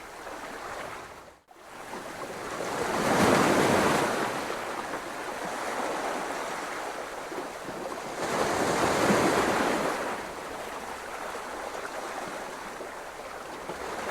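Ocean surf: waves washing in, two swelling rushes about five seconds apart, with the sound cutting out for a moment near the start.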